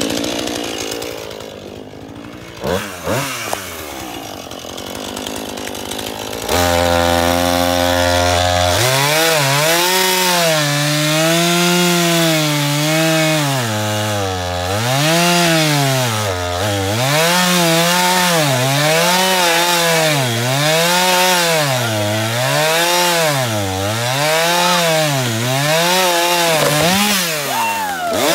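Gas chainsaw running slowly for several seconds with a few short blips of throttle, then opened up to full speed about six seconds in. From about nine seconds on, its pitch dips and recovers roughly once a second as the chain bites into a log.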